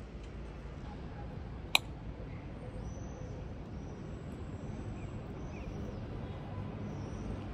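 Steady low background rumble with one sharp click about two seconds in and faint high chirps or squeaks through the middle.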